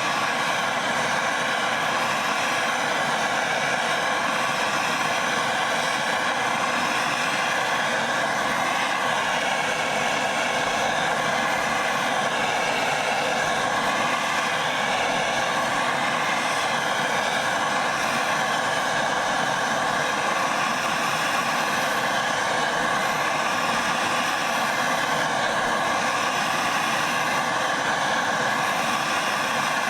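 Handheld turbo torch flame burning with a steady rushing hiss, heating a steel screwdriver blade toward a golden wheat colour before an oil quench.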